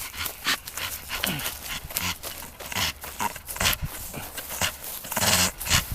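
A Staffordshire Bull Terrier making quick, irregular breathing and mouth noises as he plays with a ball.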